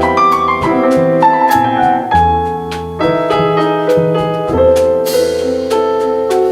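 Live small-group jazz: piano carrying the line with many quick notes over double bass and drums, and a cymbal crash about five seconds in.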